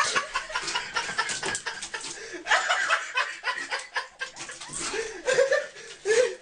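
People laughing and chuckling in short, choppy bursts.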